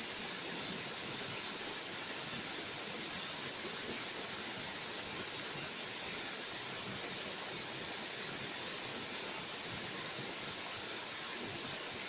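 Waterfall cascading over rocks: a steady, unbroken rush of falling water with a bright hiss.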